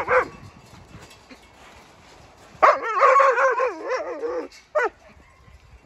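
Wolf whining in high, wavering whimpers: a short burst at the start, a longer run of whines from a little under three seconds in, and one brief whine near the end.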